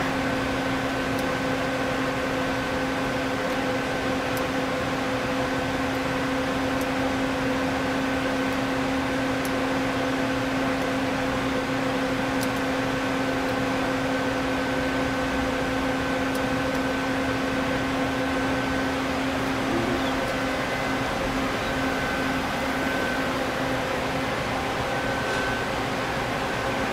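Doosan Puma 2500LSY CNC lathe running with a steady machine hum and whine over a noisy background. About twenty seconds in, the lowest tone fades out as part of the drive slows or stops, while the hum continues.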